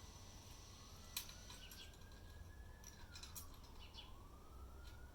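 A faint wailing siren: its tone rises slowly and then drops quickly, repeating about every three seconds. Short high chirps sound over it.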